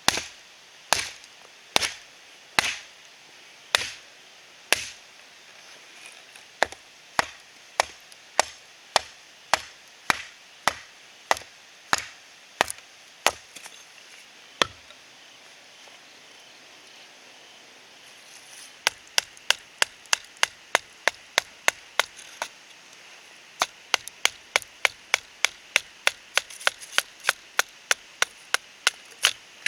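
Wood being chopped, a series of sharp single strikes. They come about once a second at first, stop for a few seconds, then come back quicker at two to three a second.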